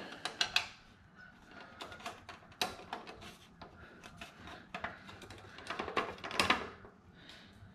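Scattered light clicks, taps and scrapes of a screwdriver and small metal parts being handled at a headlight's retaining ring and mounting bucket.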